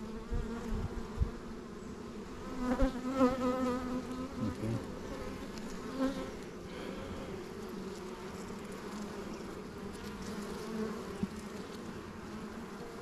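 Honeybees buzzing steadily around an open hive, with one louder, wavering buzz about three to four seconds in.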